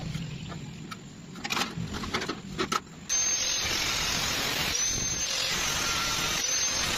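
Handheld electric welder's arc, a steady hissing crackle that starts suddenly about three seconds in, after a few scattered clicks and knocks.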